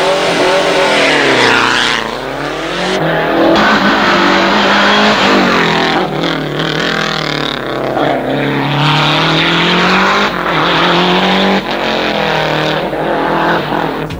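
Rally car engines at full throttle, revving up and dropping back repeatedly through gear changes. The sound comes in several short pieces, each broken off by an abrupt cut.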